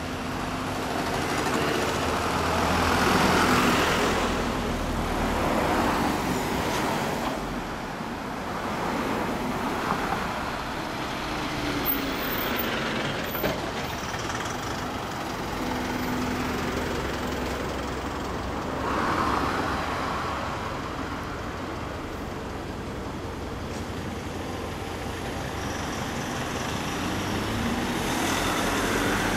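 Road and engine noise heard from inside a moving car: a steady low rumble with traffic noise that swells and fades several times.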